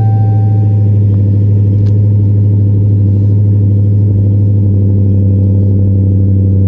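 2016 Dodge Challenger Hellcat's supercharged 6.2-litre Hemi V8 idling steadily and loudly just after a cold start, at its raised cold-start idle.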